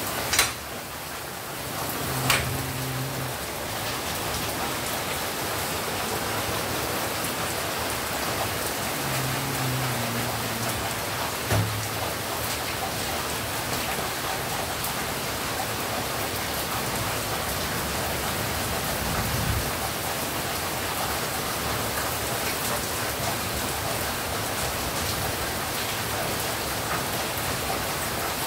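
Very heavy rain pouring down in a steady, dense hiss, with a few sharp clicks: one just after the start, one about two seconds in and one near the middle.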